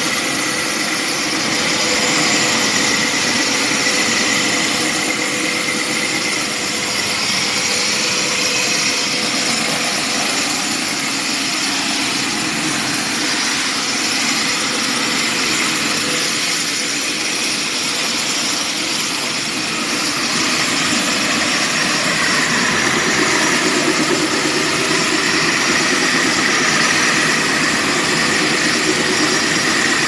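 Electric walk-behind floor grinder dry-grinding bare concrete: a steady motor tone under the rough, even noise of the abrasive grinding head on the concrete, shifting a little in tone past the middle.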